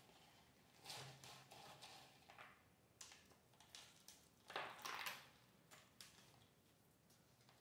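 Faint rustling and scraping of coarse orchid substrate (pine bark, charcoal and coconut husk) as hands press it around seedlings in a small pot, in irregular bursts, loudest about a second in and again around four and a half seconds in.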